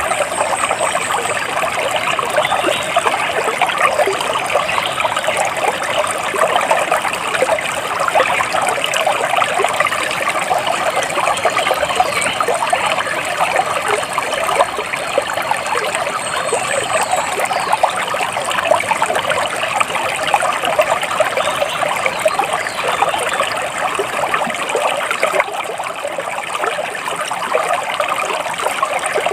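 Water splashing and trickling steadily, with a few faint high bird chirps.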